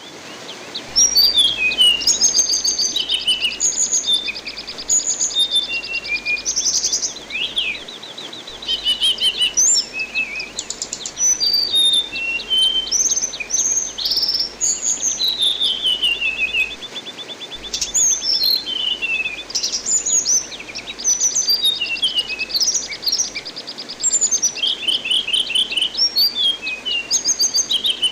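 Anis binbin thrush singing: a rapid, varied run of whistled notes and sweeps, broken by several long, even trills, over a steady hiss of running water.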